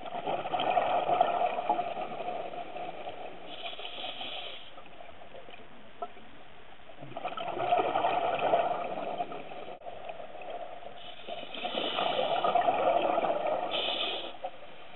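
Scuba diver breathing through a regulator underwater: three loud surges of exhaled bubbles several seconds apart, with a steadier hiss between and short high hisses of the inhale.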